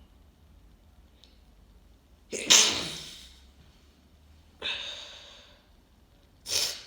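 A person sneezing with a congested head cold: one loud sneeze about two and a half seconds in, a second, quieter burst about two seconds later, and another starting near the end.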